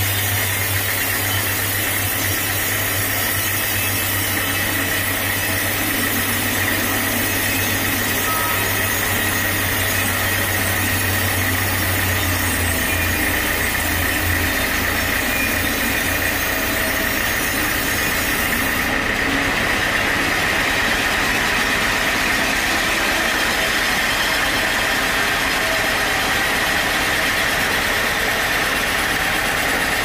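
Sawmill machinery running steadily: a constant engine-driven drone with a high whine, the low hum shifting about halfway through.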